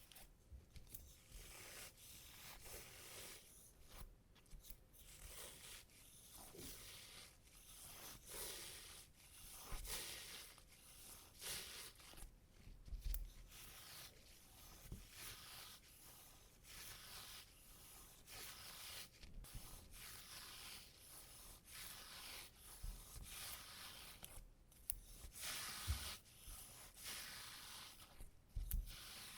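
Sticky tape pressed onto fabric trousers and peeled off again and again, with quiet crackling peels and rubs, lifting embedded cat hair.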